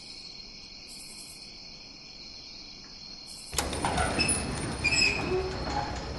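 Crickets chirring steadily, then about three and a half seconds in an iron slide bolt on a wooden door is drawn back, with metallic clicks, scraping and clinking as the door is unlatched and opened.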